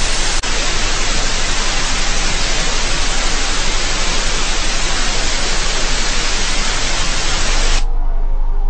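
Loud, steady static hiss, with one brief click just under half a second in. The hiss cuts off abruptly near the end, leaving a low rumble.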